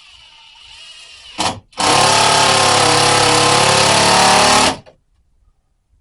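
Power drill driving a sheetrock screw: a short burst about a second and a half in, then a loud steady run of about three seconds that stops sharply.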